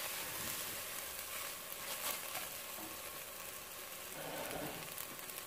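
Ground turkey and chicken sausage sizzling steadily as it browns in a pot, with a few light scrapes of a wooden spatula early on as the meat is broken apart.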